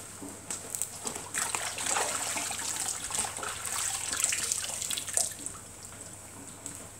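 Water or another liquid pouring and splashing, with many small irregular splashes, starting about a second in and stopping after about five seconds.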